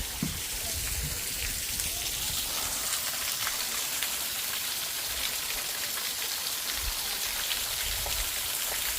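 Small waterfall splashing and dripping onto rock: a steady hiss of falling water with many small drip ticks, like rain.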